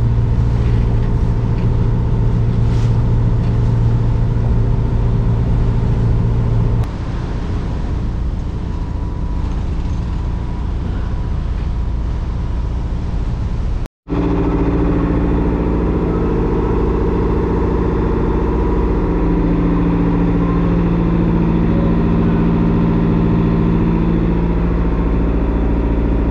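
Sailboat's inboard diesel engine running steadily under way, a constant low drone. About halfway through the sound cuts out for an instant and returns with a different tone, now heard from inside the cabin.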